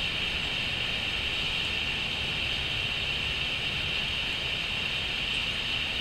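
Steady, even background hiss with a low rumble beneath it, unchanging throughout; no bird calls.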